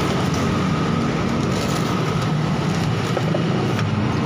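Steady low background rumble with a faint steady whine above it and a few light clicks.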